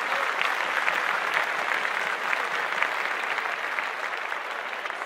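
Theatre audience applauding: dense, steady clapping from many hands, easing off slightly near the end.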